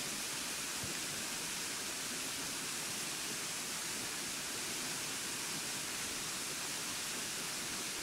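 The Burgbach waterfall, a tall narrow fall, rushing steadily: an even, unbroken hiss of falling water.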